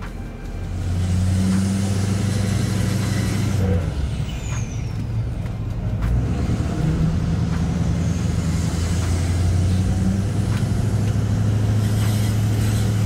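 Tuned, deleted Duramax V8 turbo-diesel in a Chevrolet Silverado 2500 pulling hard under acceleration, heard from inside the cab. About four seconds in it lets off and a high whistle falls away, then it pulls again until near the end.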